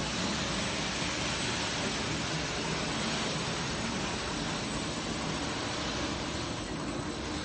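Industrial wood door sanding machine running, its motors and rotating abrasive brush and sanding rollers giving a steady rushing noise with a thin high whine on top.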